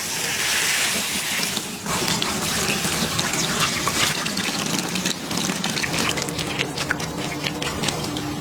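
Running water splashing on hair as it is rinsed. A steady gush runs for about the first two seconds, then turns into broken splashing with many small drips.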